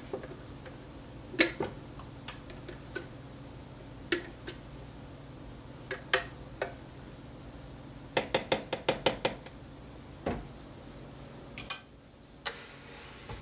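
Scattered sharp clicks and taps of a plastic Ninja blender pitcher, a spoon and a drinking glass knocking together as thick milkshake is poured out, with a quick run of about eight taps over a second about two-thirds of the way through.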